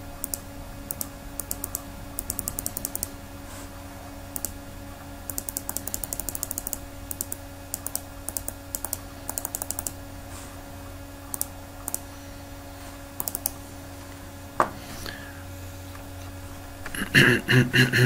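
Computer keyboard clicks in quick runs of several presses, with pauses between runs, over a steady low electrical hum. A louder brief sound comes near the end.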